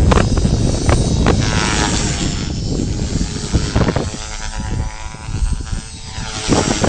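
Strong wind buffeting the microphone. Partway in the gusts ease and the steady whine of a T-Rex Pro radio-controlled helicopter's motor and rotor comes through, then the wind swamps it again near the end.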